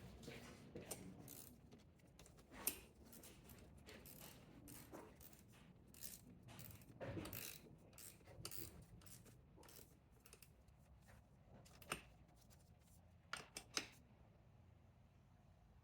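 Faint ratchet wrench clicking in short runs as the 10 mm nut on the positive battery terminal clamp is tightened, with a few sharper metallic clicks near the end.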